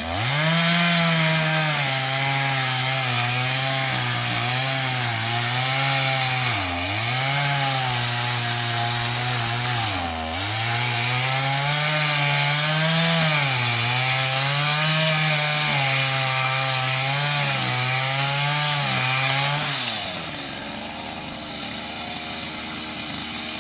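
Stihl MS 250 two-stroke chainsaw running at high revs while cutting wood, its pitch wavering and sagging sharply a few times under load. About twenty seconds in the engine drops back and the sound gets quieter.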